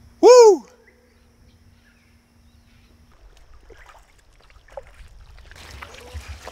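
A single loud call rising then falling in pitch, about a quarter second in. From about five seconds in, splashing footsteps wade through ankle-deep water on a reef flat.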